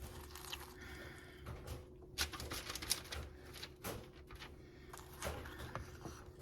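Light scraping and clicking of a ladle dishing thick melted chocolate-butterscotch candy with potato chips and pecans out of a bowl. A few sharper ticks come about two, four and five seconds in, over a faint steady hum.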